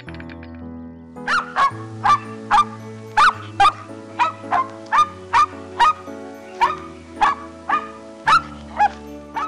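A dog barking over soft background music: a run of short barks, about two a second, starting about a second in.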